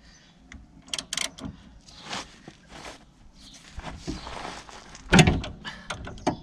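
Hand ratchet working a tool on a steering rack's inner tie rod to undo it: scattered metallic clicks and clunks, with a short rasp and then the loudest clunk about five seconds in.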